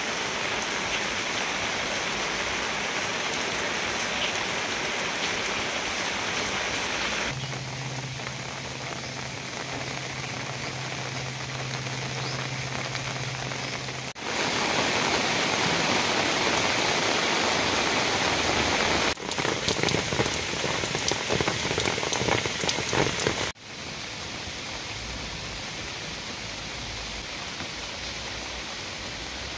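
Steady rain falling on a lily pond and garden foliage, heard in several takes that cut abruptly from one to the next. One stretch has a low steady hum under the rain, and a later, louder stretch has close, distinct drips.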